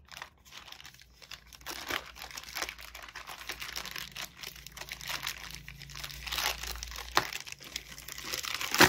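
Plastic courier mailer bag crinkling and being torn open by hand, in irregular crackles throughout, with a sharp, louder crackle near the end.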